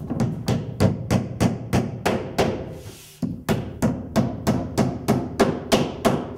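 Claw hammer driving nails through drywall into wooden studs, a quick steady run of blows about three a second with a short pause midway: the sheet being tacked up to hold it in place before screwing it off.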